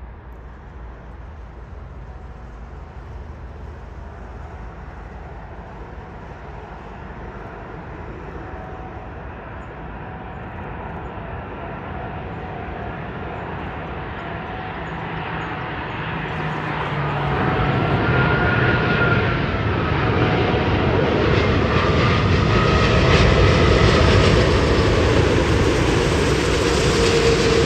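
Airbus A380's four Rolls-Royce Trent 900 turbofans on final approach with the landing gear down. The jet noise grows steadily louder as the aircraft comes in low and close. A few whining engine tones sit over the noise and are loudest near the end.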